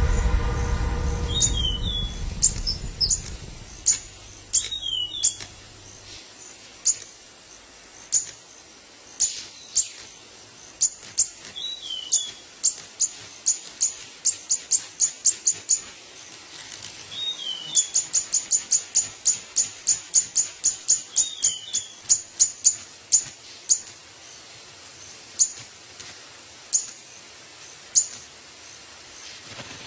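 A manakin's display sounds: sharp snaps, singly and in quick runs, with a fast rattle of about a dozen partway through, and a few short whistled calls in between.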